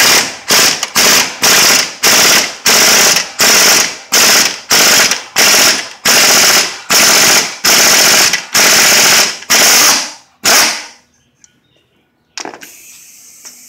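Air impact wrench hammering in short bursts, about two a second, as it drives a wheel puller's centre screw to pull the crankshaft pulley off a Ford 300 inline-six. The bursts stop a little before eleven seconds in, and a steady air hiss starts near the end.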